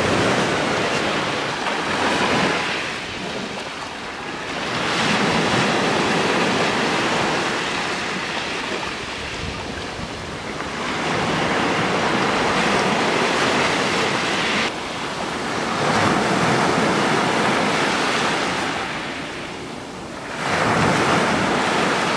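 Sea surf breaking and washing up the shore in waves that swell and fall every few seconds.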